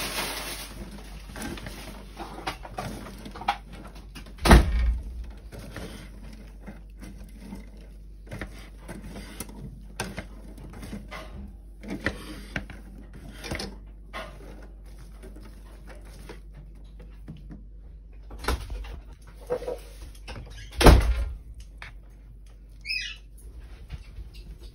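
Spatula stirring chopped vegetables in a stainless wire-mesh colander: soft scraping with scattered clicks, and two loud knocks, one about four seconds in and one about twenty seconds in. A short whistle-like bird call near the end.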